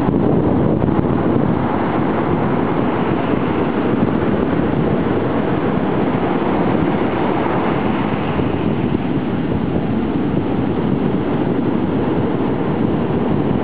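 Heavy ocean surf breaking and washing in, a steady loud roar that swells and eases slightly, with wind buffeting the microphone.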